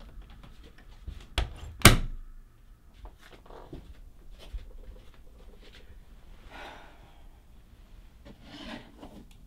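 An interior door shutting: a knock and then a loud thud about two seconds in. Soft footsteps and the rustle of clothes and bedding follow as someone sits down on a bed.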